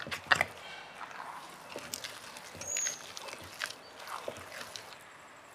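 Thick rice batter being ground and pushed around in a traditional hand stone grinder: irregular wet scrapes and clicks of stone and batter.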